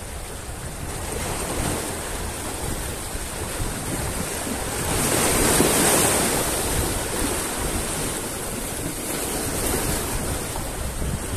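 Sea waves washing and breaking over shoreline rocks, one wave crashing loudest about six seconds in. Wind is buffeting the microphone.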